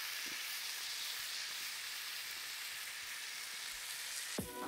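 Two steaks sizzling steadily as they sear on a hot flat griddle, their fat rendering. A single knock comes near the end.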